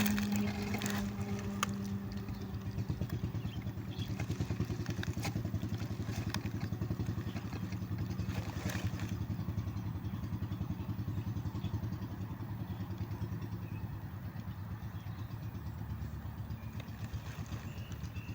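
Small motorcycle engine running steadily with an even, rapid pulse, with a few faint clicks.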